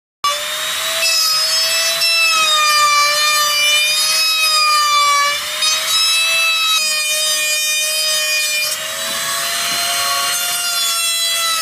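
An electric power tool whines steadily as it cuts and grinds wood, with a rasping noise from the wood under it. The pitch of the motor sags and recovers slightly as it is pressed into the work.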